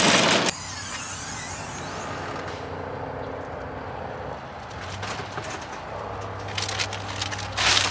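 Brief loud rattle of a shopping cart rolling over asphalt, cut off suddenly, then steady parking-lot ambience with a low vehicle engine hum. Near the end, rustling and knocks as plastic grocery bags are handled and loaded into a car's cargo area.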